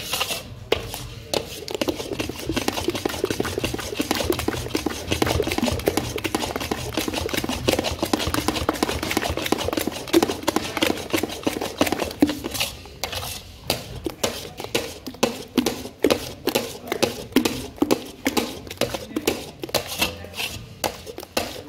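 A spoon stirring a thick flour-and-water batter in a large karahi, scraping and knocking against the pan while the flour is mixed in to dissolve the lumps. The strokes come fast and dense at first, then from about twelve seconds in they turn slower and separate, several a second.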